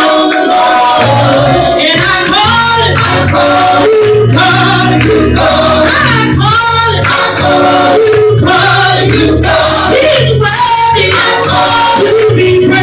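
Gospel vocal group singing loud into hand-held microphones over instrumental backing with a steady bass line and a beat.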